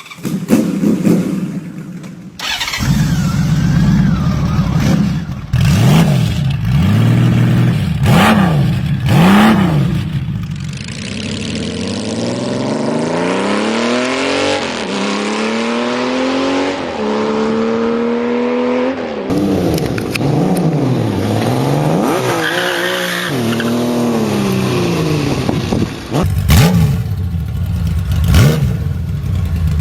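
Honda Valkyrie's 1520 cc flat-six engine, in a series of short clips: revved in repeated up-and-down blips, then accelerating hard through several gears, the pitch climbing and then dropping at each shift.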